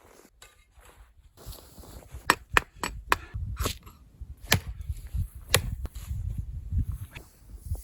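A series of sharp, irregular knocks, about seven strikes over a few seconds, with low thuds between them.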